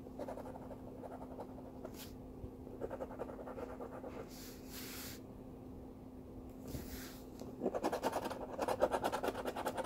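Rapid back-and-forth scratching on a scratch-off lottery ticket as the latex coating over the caller's numbers is rubbed away. The strokes are soft at first and grow louder and quicker near the end.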